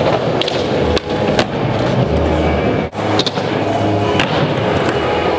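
Skateboard rolling and clacking on skatepark ramps, mixed with loud background music that has held bass notes and sharp percussive hits.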